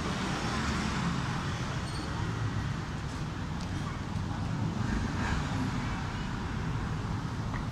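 Road traffic on a busy city street: a steady rumble and hiss of passing vehicles.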